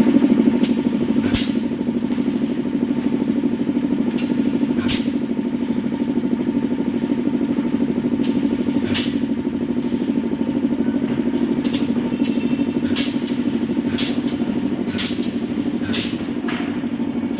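Pneumatic spot welding machine joining sheet steel: a dozen or so short, sharp clack-hisses at irregular intervals as the air cylinder drives the electrodes down for each weld, over a steady low hum.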